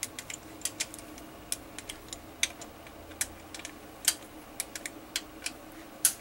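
Torque wrench ratcheting on the valve-body-to-case bolts of a 48RE automatic transmission as they are torqued to 100 inch-pounds: irregular sharp clicks, several a second, a few of them much louder.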